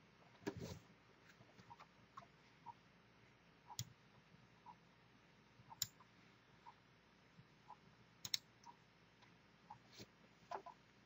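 Near silence with faint computer mouse clicks, about half a dozen sharp ones scattered through, over a light tick about once a second.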